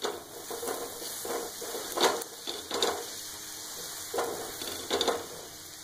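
Sattu paratha sizzling in oil on a hot flat griddle (tawa), with a handful of scrapes and taps as a slotted metal spatula presses and turns it against the pan.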